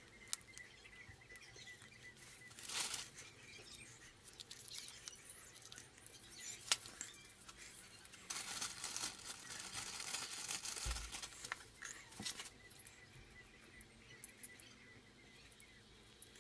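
Handling noises of small wiring work: scattered light clicks and taps of pliers and wire, with a stretch of cloth rustling for about four seconds in the middle.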